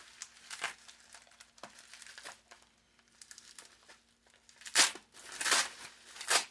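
Small plastic baggies being handled, crinkling in short bursts, with the loudest crinkles near the end.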